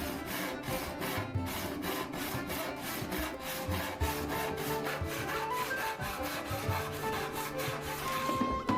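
Hand saw cutting white oak in quick, even back-and-forth strokes that stop shortly before the end, with background music playing underneath.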